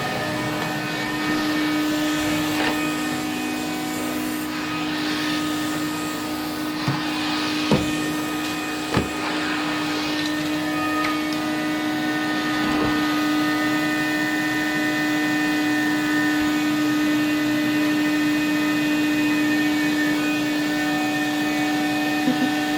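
Numatic Henry canister vacuum cleaner running steadily with a constant hum, broken by a few brief knocks.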